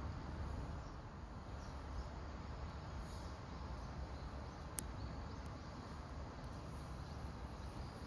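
Faint outdoor background: a steady low rumble with a soft hiss, broken once by a single sharp click about halfway through.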